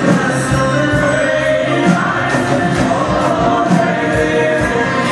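Live folk-rock band playing: dhol drum beats under electric guitar and double bass, with a woman singing long, held notes.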